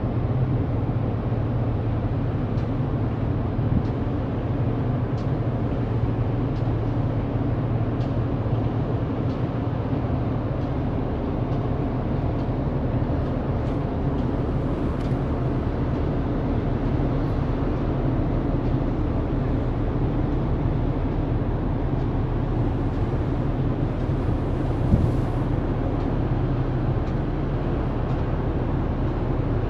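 Steady low engine drone from a large container ship passing close by, with an even hiss of wind and water over it.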